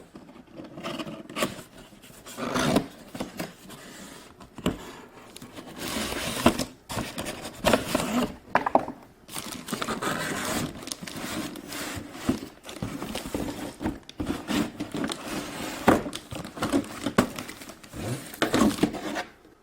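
Toy box being opened and unpacked by hand: irregular scraping, tearing and crinkling of cardboard and plastic packaging, with many short knocks.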